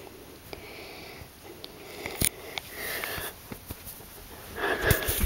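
Close sniffing and breath noise, with a sharp click a little over two seconds in and louder rustling near the end as a hand strokes the cat's fur near the microphone.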